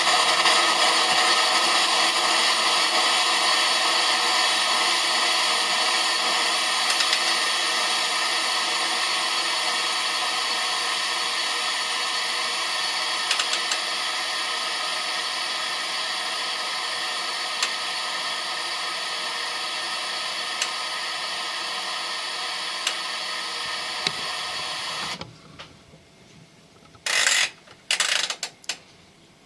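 Compressed air rushing out of an open RV water outlet as the plumbing is blown out for winterization: a steady hiss that slowly weakens, then cuts off sharply about 25 seconds in. A few short spurts follow near the end.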